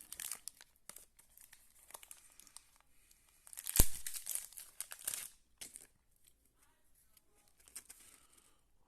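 Baseball card pack wrapper crinkling as it is handled and torn open, with the loudest tearing about four seconds in, then faint rustling.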